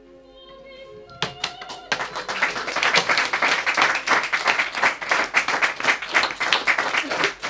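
A piece of recorded opera music fades out in the first second. Then a small audience of young children starts clapping, a few scattered claps at first, then dense continuous applause.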